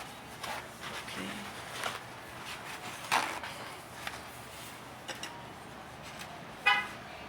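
Light clicks, taps and scrapes of small metal brake-pad hardware clips being handled and wiped clean, with a brief pitched squeak near the end.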